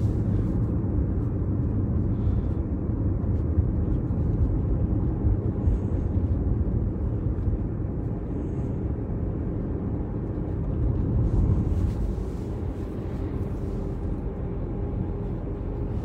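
Steady low rumble of a car's engine and tyres heard from inside the cabin while it drives along at road speed.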